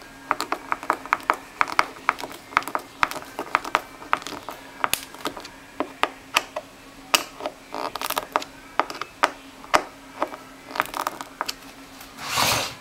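Rapid, irregular sharp clicks and taps, a few a second, over a steady low hum, with a brief louder rushing burst near the end.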